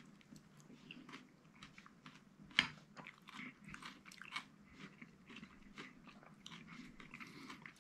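Faint eating sounds of someone spooning up and chewing okroshka, a cold kvass soup: soft chewing with light clicks and ticks, and one sharper click about two and a half seconds in.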